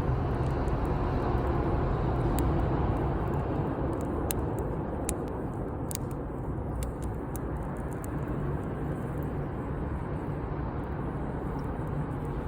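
Wood fire burning outdoors: a steady low rush with several sharp pops and cracks of the burning wood, scattered through the middle.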